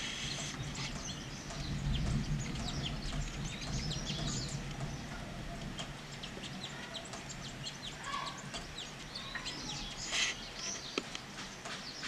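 Weaver birds chattering: a dense run of short, rapid high chirps. A low sound sits beneath the chirps from about one to five seconds in.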